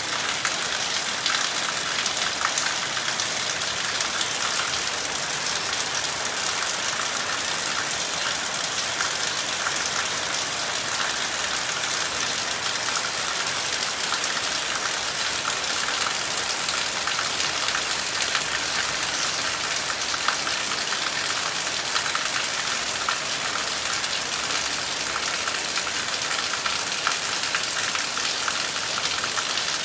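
Heavy rain falling steadily on trees and the ground: a dense, even hiss of countless drops that does not let up.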